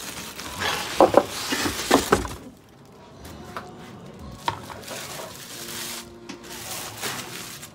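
Glass and kitchenware clattering and clinking, busiest in the first two seconds with several sharp knocks, then lighter handling noises with a few clicks.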